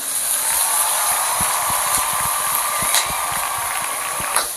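Chopped onion and garlic sizzling in hot oil in a frying pan that is being shaken and tossed over a gas burner, the pieces rattling lightly in the pan, with a couple of sharp knocks of the pan about three seconds in and near the end.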